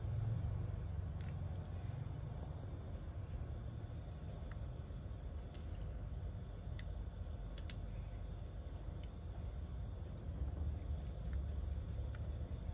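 Insects chirring steadily, a high-pitched pulsing drone, over a low rumble, with a few faint ticks scattered through.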